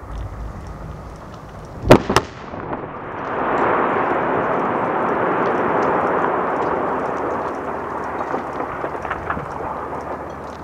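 Quarry rock blast: a low rumble at first, then two sharp cracks about two seconds in, followed by a long rushing rumble that slowly dies away over several seconds, with a few small crackles near the end.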